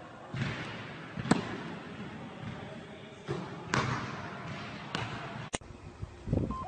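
A few sharp thuds or knocks, the loudest about a second in, over a noisy background.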